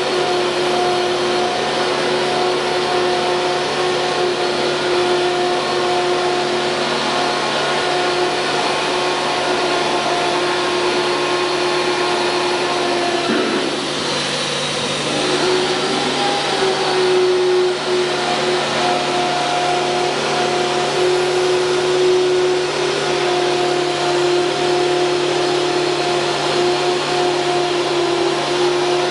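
ATC CNC router machine running: a steady mechanical hum with a steady pitched whine over it. The whine breaks off with a faint click about thirteen seconds in and comes back slightly higher a couple of seconds later.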